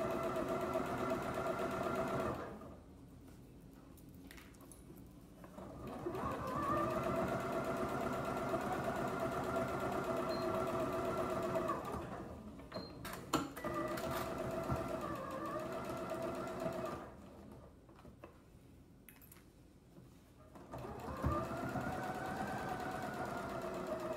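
Computerised domestic sewing machine stitching the boxed corners of a fabric tote bag lining. It runs in four stretches of a few seconds with pauses between, its motor whine dipping and rising as the speed changes, and a few sharp clicks come in the pause about halfway through.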